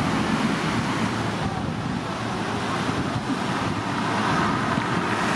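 Steady rush of river whitewater at a standing wave, with wind buffeting the microphone.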